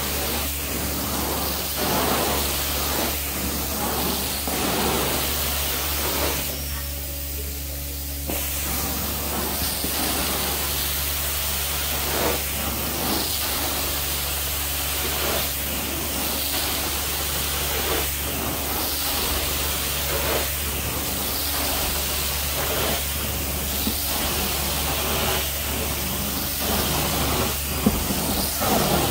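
Carpet-cleaning extraction machine running with a steady hum, and the cleaning wand hissing with suction and spray in repeated passes over the carpet. The hiss drops for a couple of seconds about seven seconds in.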